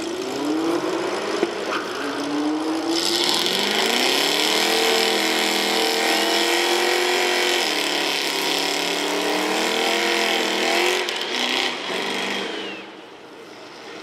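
Two drag cars doing burnouts on the start line. The engines rev up over the first few seconds and are held high over a steady screech of spinning tyres, with one dip in pitch midway. Both are let off a couple of seconds before the end.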